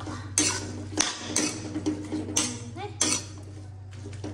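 A steel spoon scrapes and knocks against a steel wok while stir-frying pumpkin shoots and garlic: about five sharp scraping strokes, irregularly spaced, over a low steady hum.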